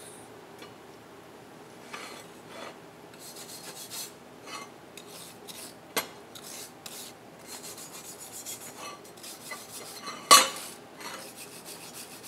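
Hand wire brush scrubbing a fresh weld on a steel bracket in short, irregular strokes. There is a sharp metal knock about six seconds in and a louder metal clank about ten seconds in.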